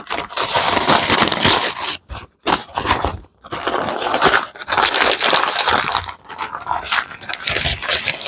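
Pink butcher paper rustling and crinkling as it is folded and tucked tightly around a rack of ribs, in stretches broken by brief pauses.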